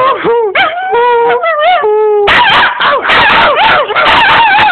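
A dog howling in long, wavering notes, breaking about two seconds in into a louder run of overlapping howls and yips.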